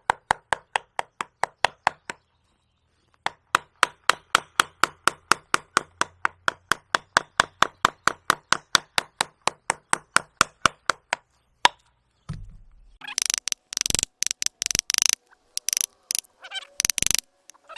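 A carving gouge being driven into a tree's wood with rapid, even taps, about four a second, pausing briefly once. Near the end the tapping gives way to a dull thud and several harsher scraping cuts.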